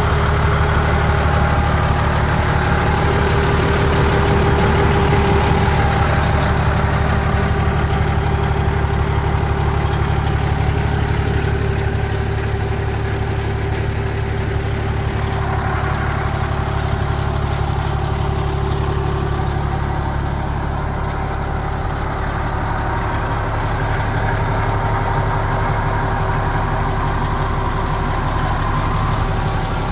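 Case International 1056XL tractor's six-cylinder diesel idling steadily, with a high whistle over the engine note.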